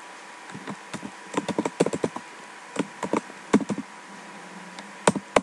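Computer keyboard typing: irregular runs of quick key clicks with short pauses between them, the sharpest clicks near the end.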